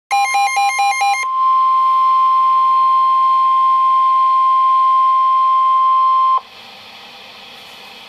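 Midland weather alert radios sounding a flood warning alert: about a second of rapid beeping that alternates between two pitches, then the steady 1050 Hz NOAA Weather Radio warning alarm tone, loud, for about five seconds. The tone cuts off suddenly, leaving faint radio hiss, the pause before the spoken warning message.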